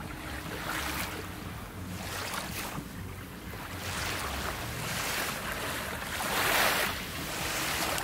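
Small waves breaking and washing up a sandy beach in gentle surges, the loudest wash coming a little before the end.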